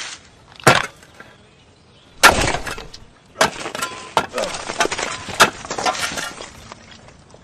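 A metal shovel digging into soil: a sharp strike about a second in, a heavier stab with a crunching scatter a little after two seconds, then a quick run of crunching scrapes and clicks.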